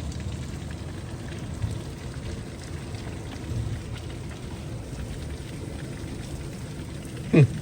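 Heavy rain falling steadily during a thunderstorm, with faint scattered ticks. Near the end a short vocal sound falls in pitch.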